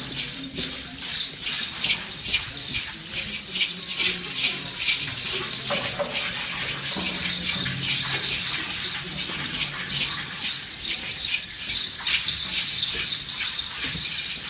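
Dancers' hand rattles (sonajas) shaken in quick, irregular strokes, a dry hissing rattle with no drum behind it.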